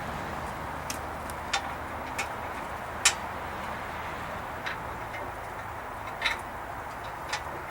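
Scattered sharp clicks and light knocks, about seven at irregular intervals with the loudest about three seconds in, from bolts, washers and hand tools being handled while a stinger hoop is bolted onto a steel Jeep bumper, over a steady background hiss.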